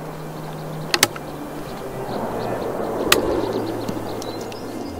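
Rolling echo of a gunshot coming back off the mountainsides, swelling and fading over a couple of seconds, with a few sharp clicks and a low steady hum underneath.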